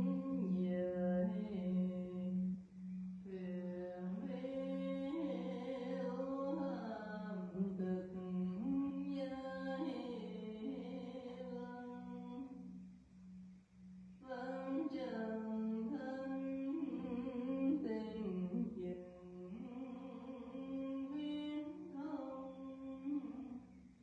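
A single voice chanting a slow, melodic Buddhist temple chant over a steady low hum that pulses evenly, with a short pause in the chant about halfway through.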